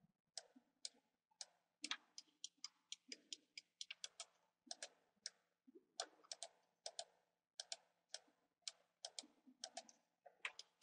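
Computer mouse clicking repeatedly and irregularly, several clicks a second, often in quick press-and-release pairs.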